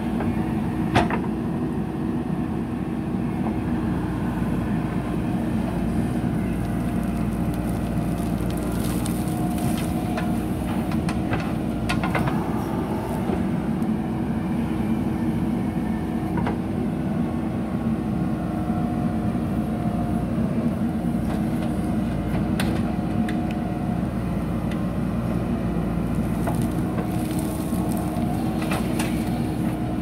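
JCB backhoe loader's diesel engine running steadily under load while the backhoe digs and lifts sand. A faint whine comes and goes, and a few sharp clanks come from the bucket and arm.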